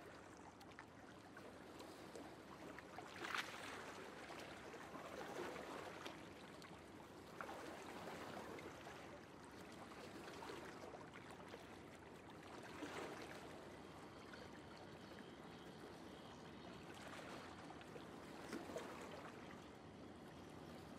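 Faint running water: a steady soft hiss with a few brief louder splashes.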